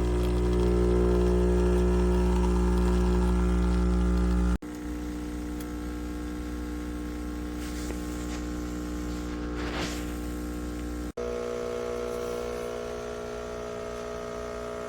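Espresso machine's pump running with a steady electric hum, in three stretches that cut off abruptly, the first the loudest.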